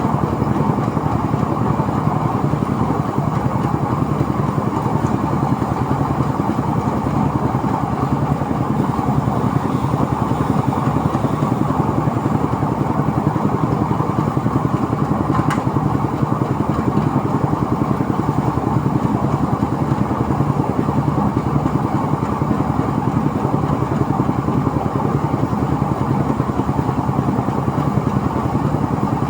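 Engine-driven rice threshing machine running steadily at a constant speed.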